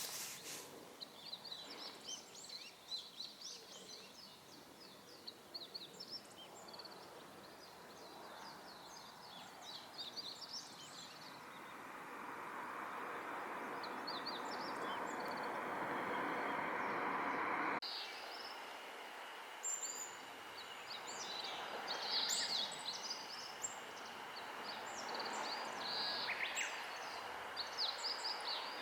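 Small birds calling outdoors with many short, high chirps scattered throughout, over a steady rushing background noise that swells in the middle and cuts off abruptly about eighteen seconds in.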